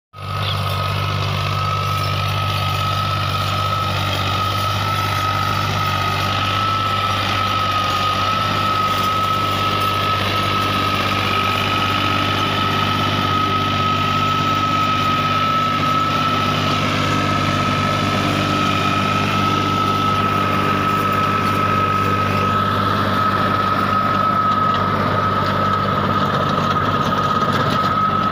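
Fiat 480 tractor's diesel engine idling steadily, with a constant high whine over the low engine hum.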